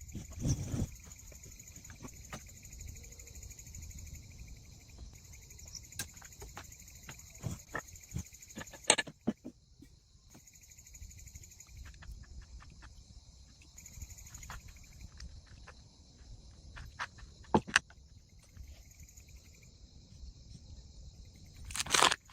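Insects chirring in a steady, finely pulsing high chorus that breaks off about nine seconds in and comes back fainter in patches. Scattered clicks and knocks sound over it, with a louder burst of knocks near the end.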